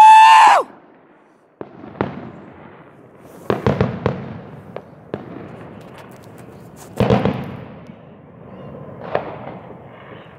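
A man's loud whooping shout at the start, then scattered firecracker and firework bangs going off across the neighbourhood, each trailing an echo. The bangs come singly and in short clusters, the biggest bursts about three and a half and seven seconds in.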